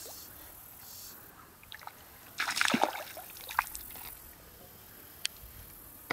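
Stream water splashing and sloshing in one short burst about two and a half seconds in, over the faint steady sound of the stream, followed by a few sharp ticks.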